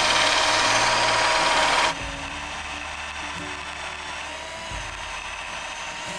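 Cordless drill with a cheap bit boring into a mild steel nut: loud drilling with a steady whine for about two seconds, then it drops abruptly to a much quieter, steady run.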